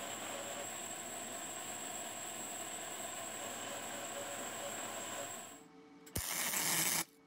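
MIG welding arc crackling steadily for about five and a half seconds as hex nuts on the hinge bolt are tack-welded to a steel box. After a short lull, a sharp click starts a louder, shorter burst of weld crackle lasting under a second near the end.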